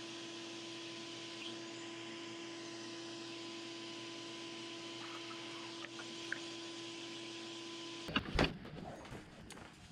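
Shop vacuum running as a dust extractor at a bench vise, a steady motor hum with a held tone. It cuts off about eight seconds in, followed by a few loud knocks.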